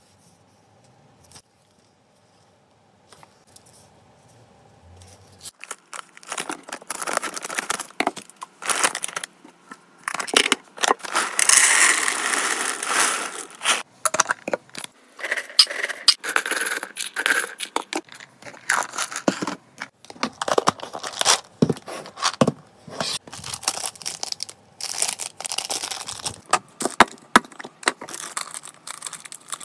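Objects and packaging being handled and unpacked: irregular rustling, crinkling and clicking that starts about six seconds in and carries on busily.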